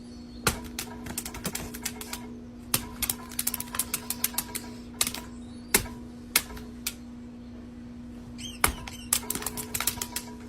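Irregular runs of sharp taps and clicks, often several a second, over a steady low hum.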